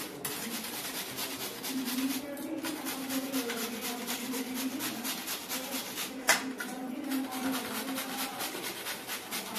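Carrot being grated by hand on a flat stainless-steel grater resting on a steel plate: quick, even rasping strokes, with one sharp click about six seconds in.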